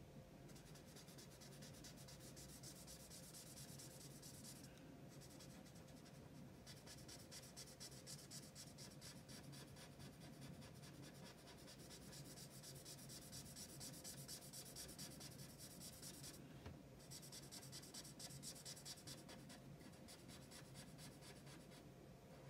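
Faint, fast scratching of a black marker nib going back and forth on paper as a solid area is coloured in, with short breaks about five, six and seventeen seconds in. A faint steady hum sits underneath.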